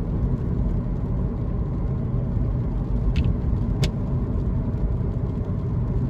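Car driving, heard as a steady low road and engine rumble, with two short clicks a little past the middle.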